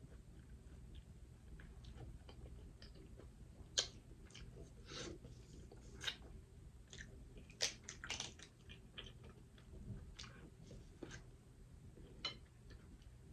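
Close-miked eating of seafood in butter sauce: wet chewing and lip smacks, irregular, with a few sharper clicks.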